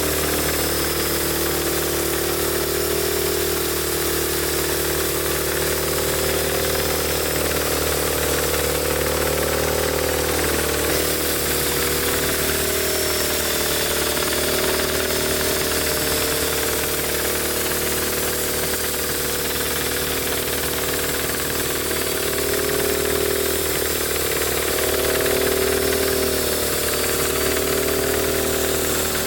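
Homemade band sawmill running: a steady engine hum under a mid-pitched whine that wavers in pitch, with a constant hiss over the top.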